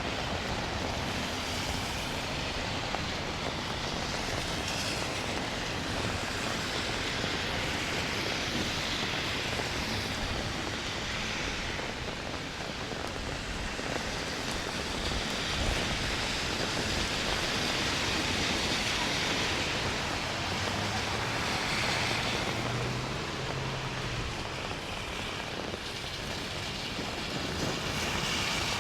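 Steady rain on a city street, with the tyre hiss of several cars swelling and fading as they pass on wet asphalt.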